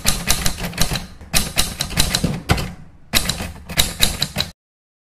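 Typewriter keystroke sound effect: rapid clacking in three runs with short pauses between them, stopping abruptly about four and a half seconds in.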